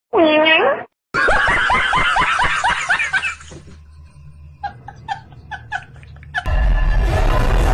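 A short pitched sound that dips and rises, then laughter in quick repeated bursts, then fainter snickering. A loud noisy sound cuts in near the end.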